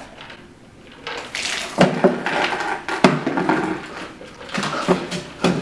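A bucket of ice water poured over a person's head, starting about a second in: a rush of splashing water with a few sharp splashes onto the floor, followed by the man's shouts at the cold.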